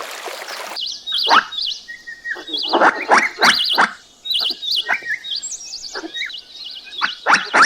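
Animal calls: a run of quick calls that sweep down in pitch, mixed with high wavering trill notes, starting about a second in.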